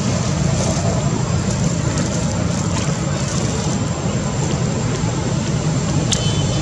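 Steady, loud low rumble of background noise with no break, and a brief high-pitched click about six seconds in.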